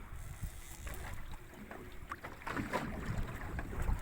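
A boat's motor running with a low, steady rumble, with wind buffeting the microphone.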